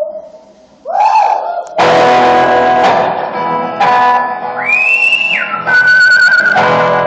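Live music: a whistled melody, with high notes that slide and waver, over plucked string chords. The playing drops away briefly near the start and comes back in full a couple of seconds in.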